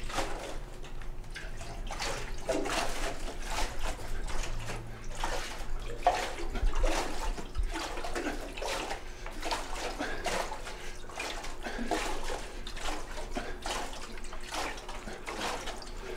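Liquid sloshing inside a steel beer keg, surging about once a second as the keg is pressed overhead in rapid repetitions.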